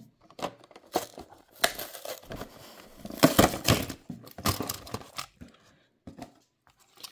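Toy blister pack being peeled open: the clear plastic blister crinkles and tears away from its cardboard backing card in irregular stretches, loudest about three seconds in, then a few faint clicks.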